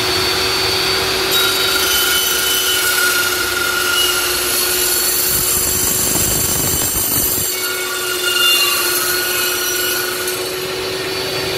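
Makita LC1230 slow-speed cold-cut saw with its 305 mm carbide blade running at full speed, giving a steady whine. From about a second in, the blade is cutting through a workpiece clamped in its vise, with a hiss over the motor until near the end.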